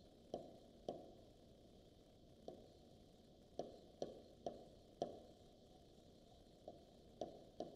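Stylus tapping on an interactive touch-screen board during handwriting: about ten short, sharp taps at irregular intervals over a faint steady hiss.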